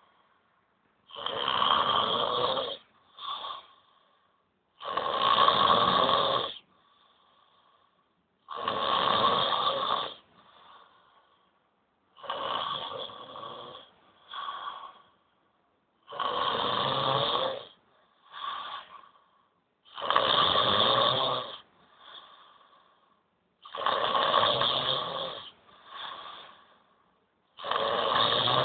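A person snoring loudly in a regular rhythm: a long snore about every four seconds, each followed by a shorter, quieter one.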